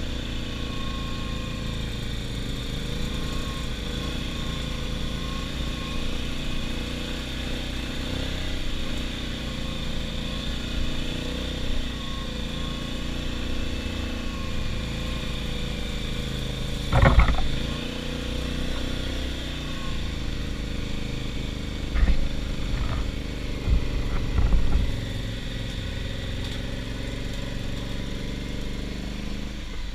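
ATV engine running at a fairly steady speed, its pitch rising and falling a little. There are a few loud thumps, one about halfway through and a couple more a few seconds later.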